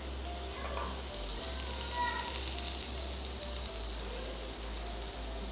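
Steady sizzling hiss of chicken skewers grilling on a hot stovetop grill pan, with faint soft music notes underneath.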